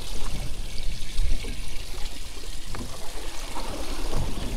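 Water trickling and lapping steadily, with a low rumble and a few faint ticks.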